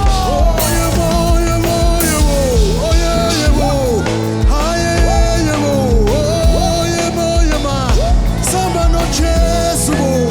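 Live church worship band playing an upbeat song with a steady drum beat, bass and held chords, and a lead melody line that slides up and down in pitch.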